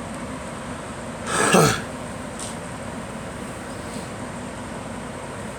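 A girl coughs once, a short harsh cough that falls in pitch, about a second and a half in, over a steady background hiss.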